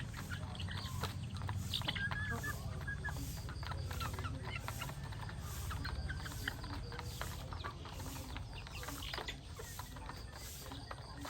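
Chickens clucking, with short calls clearest about two seconds in. Many quick sharp ticks and taps run throughout over a steady low rumble.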